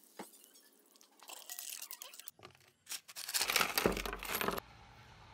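Small blackened metal parts from a Makita 4100NB cutter (gears, a bearing housing, bolts) tipped out of a metal container onto a wooden tabletop. A few light clinks come first, then a dense clatter that lasts about a second and stops abruptly.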